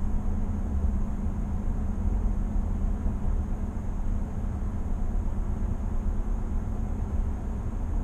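Steady road and tyre noise inside the cab of a 2020 GMC Sierra 1500 AT4 pickup cruising at highway speed, mostly a low, even rumble.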